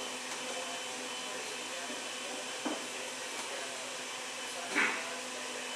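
Steady whirring hiss with a faint hum, as from a fan or small motor running. Two brief sounds break in, about two and a half and five seconds in, the second louder.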